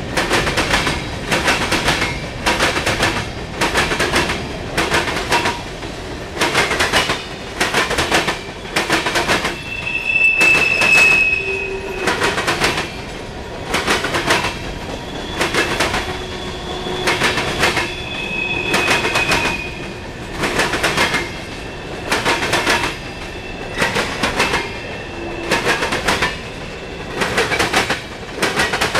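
Freight cars of a CSX train rolling past close by: wheels clattering over the rail joints in a steady clickety-clack, a group of clacks about every second and a half as each car goes by. A brief high wheel squeal comes about a third of the way in, and another about two-thirds in.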